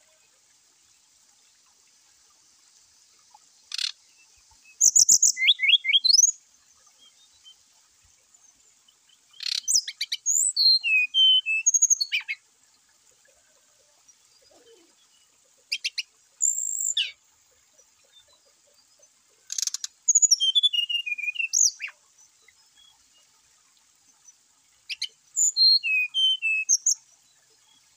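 Brown-chested jungle flycatcher singing in five separate bursts of sharp, high whistled notes, several sliding down in pitch, with pauses of a few seconds between bursts. A faint steady high hiss runs underneath.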